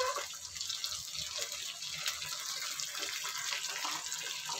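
A tadka of onions, curry leaves and ginger paste sizzling steadily in hot oil in a small pan, stirred with a wooden spoon, with a few light clicks of the spoon against the pan.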